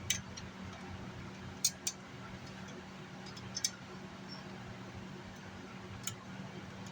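Scattered sharp clicks and taps of hand tools and screws on a car amplifier's metal chassis as it is taken apart, about five in all, over a steady low hum.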